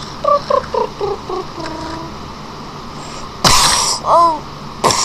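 A child making mouth sound effects for a toy car chase: a quick run of short notes stepping down in pitch, then about three and a half seconds in a loud breathy whoosh, a brief squeaky call falling in pitch, and another whoosh near the end.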